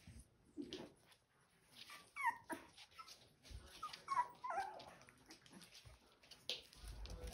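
Young Rottweiler puppies whimpering in short, high, wavering squeaks: a couple about two seconds in and a cluster around four seconds in. Faint scuffs and clicks of the pups moving on a hard floor run between the cries.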